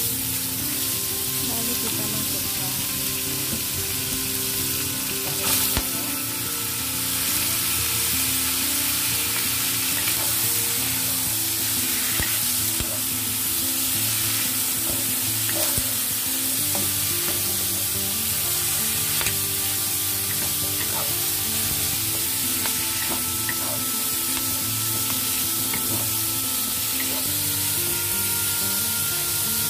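Wood ear mushrooms and asparagus sizzling in a hot oiled wok while being stirred and tossed with a wooden spatula. The frying hiss runs steadily, with scattered light clicks of the spatula against the pan.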